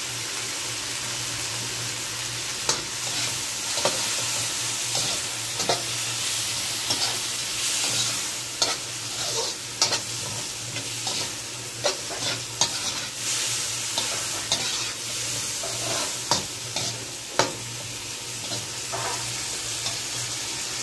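Shrimp and vegetables sizzling in an oiled wok while being stir-fried with a metal slotted spatula, which scrapes and clacks against the pan many times at an uneven pace.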